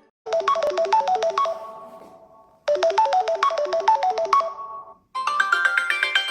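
Samsung Galaxy A17 ringtones: a quick, light run of plucked-sounding notes plays twice, fading out each time. About five seconds in, a different, brighter tune begins.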